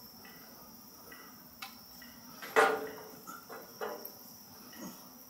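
Insects chirring steadily, with a few knocks and handling sounds; the loudest is a sharp clatter about two and a half seconds in.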